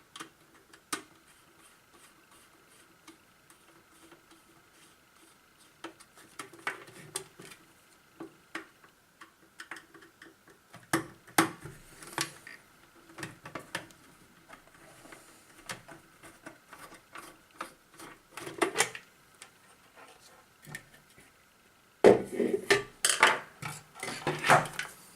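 Screws being taken out of a disco light's plastic housing and the parts handled: scattered clicks, clinks and knocks of the screwdriver, screws and casing, with a busier clatter near the end.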